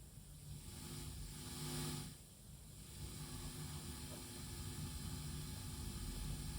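Steady hiss with a faint low hum from a studio monitor fed by a Tascam LM-8ST mixer's right channel, rising and falling in level, with no crackling or popping: the right channel is clean.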